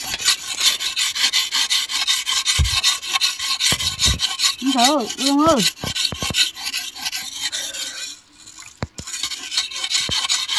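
Rhythmic rasping, scraping strokes, about five or six a second, that stop briefly about eight seconds in. Two short wavering pitched calls come near the middle.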